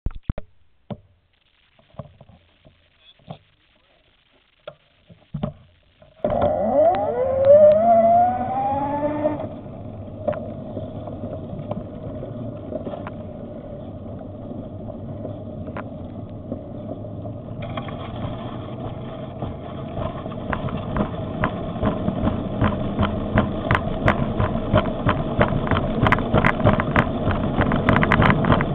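Electric bicycle motor starting up with a whine that rises in pitch for a few seconds as the bike accelerates, then running steadily. From about two-thirds of the way in, wind on the microphone and rattling clicks from the moving bike grow louder. Before the motor starts there are only a few scattered knocks and clicks.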